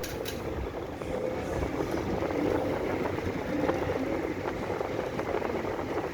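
Split AC indoor unit running, its fan giving a steady even hum with very little noise, the rattle it had before now cured.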